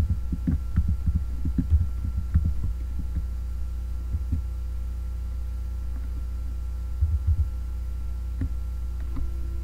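Computer keyboard keys tapped in a quick run of dull thumps for about three seconds, then a few scattered taps later on, over a steady low electrical hum.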